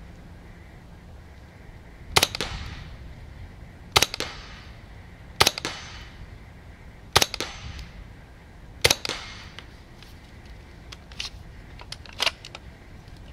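CZ Scorpion EVO 3 S1 semi-automatic .22 LR carbine with a sound moderator fired five times, single shots about a second and a half to two seconds apart, each a sharp crack with a short ring after it. Near the end come a few lighter clicks.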